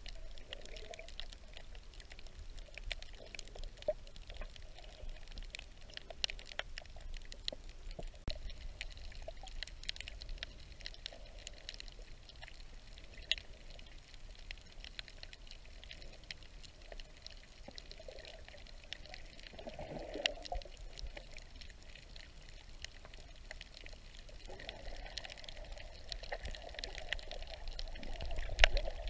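Underwater sound of a reef picked up by a submerged camera: muffled water movement with many scattered sharp clicks and crackles. It grows a little louder near the end, with one louder click.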